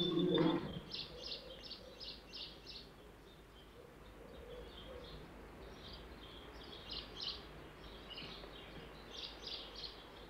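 Small birds chirping in runs of quick, high, repeated chirps, several times over, above a faint steady outdoor background.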